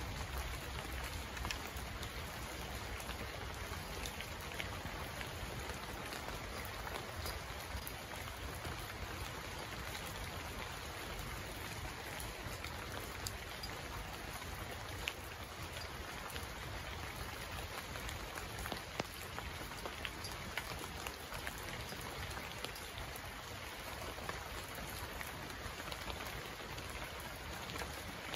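Steady rain falling, an even hiss with scattered sharp drop ticks.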